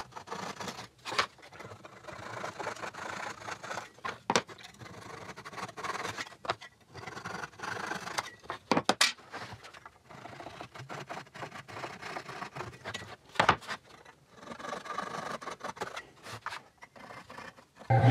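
Light, irregular scraping and rubbing of wooden parts being handled and worked by hand, with a few sharp knocks of wood set down on a bench.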